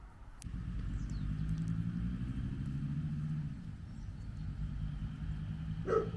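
A vehicle's motor running with a low, steady hum that starts suddenly about half a second in; a dog barks twice near the end.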